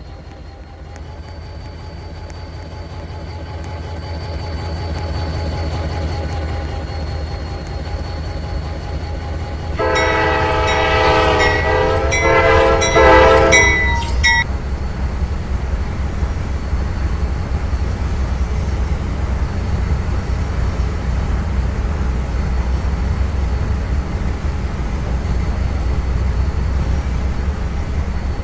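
Diesel freight train approaching with a low rumble that grows louder. About ten seconds in, the locomotive sounds its air horn in several blasts over about four seconds, then the train keeps rumbling past.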